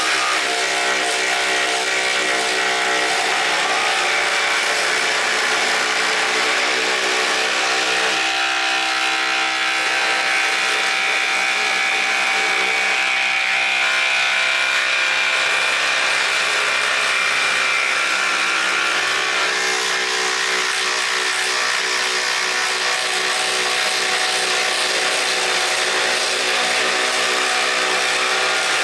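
Two cordless impact drivers, a Craftsman V20 and a RIDGID Octane, hammering steadily as they drive fasteners, with a continuous rattling buzz for the whole stretch. The pitch of the hammering shifts slightly twice as the load changes.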